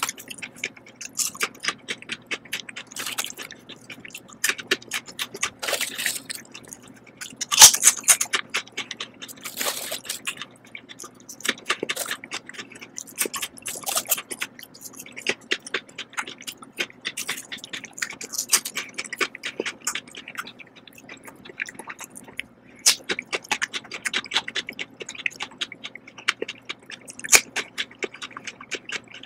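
Potato chips crunching as they are bitten and chewed close to the microphone: a dense, irregular crackle of sharp crunches.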